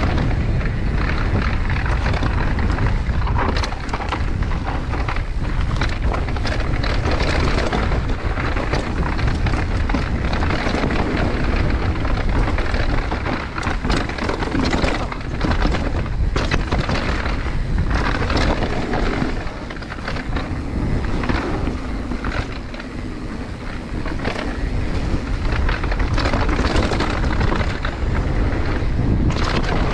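Downhill mountain bike ridden fast over dirt and rocks, heard from a handlebar-mounted camera: wind buffeting the microphone and tyres rumbling on the trail, with frequent clattering knocks from the bike over bumps and rocks. It eases a little past the middle, then picks up again.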